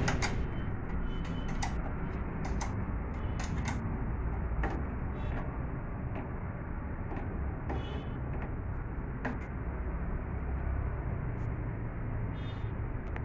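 Metal spanner clicking and clinking on a bolt at the base of a Honda EP1000 generator's frame as the bolt is tightened, in scattered short ticks over a steady low rumble.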